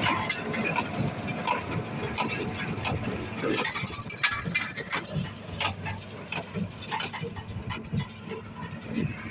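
Farm machinery rattling and clanking irregularly over a low engine hum, with a dense burst of sharp rattles about four seconds in.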